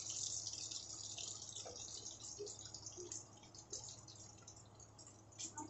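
Sabudana vadas deep-frying in hot oil in a kadhai: the oil sizzles with a dense crackle of tiny pops that eases off slowly.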